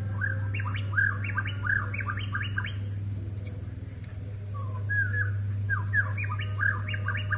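Bornean shama (murai batu Borneo) singing: two quick phrases of sharp, sweeping whistled notes with a short pause between them. A steady low hum lies underneath.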